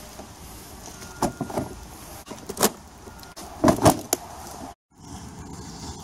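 A Kawasaki Concours 1000's hard plastic saddlebag being handled: a string of sharp clicks and hollow knocks. The loudest pair of knocks comes a little before four seconds in, and the sound then cuts out for a moment.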